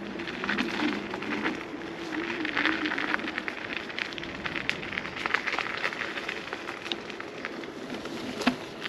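Electric scooter rolling over a rough unpaved path: its tyres crunch and crackle on loose ground while the hub motor gives a faint wavering whine. A single sharp knock comes near the end.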